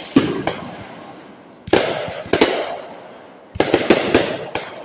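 Aerial fireworks going off in volleys: a few bangs at the start, a big boom about two seconds in, and a rapid run of bangs near the end, each trailing off in a rolling echo.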